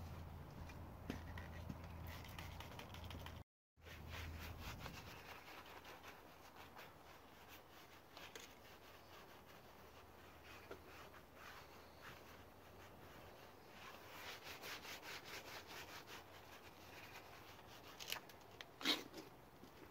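Detailing brush scrubbing all-purpose cleaner foam over the plastic grille and bumper trim of a BMW E39: a faint, quick rubbing of bristles on plastic as the trim is degreased. Near the end there is one brief, louder scrape.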